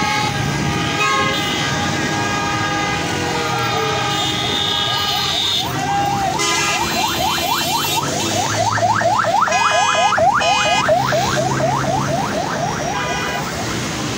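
Convoy vehicle's electronic yelp siren sounding as it passes, a rapid rising sweep repeating about four to five times a second, starting about halfway through and stopping near the end. A steady horn-like tone sounds over it briefly, with engines and traffic running underneath.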